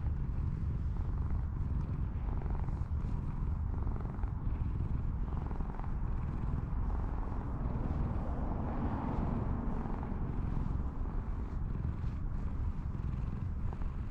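Domestic cat purring steadily as it is stroked on the head.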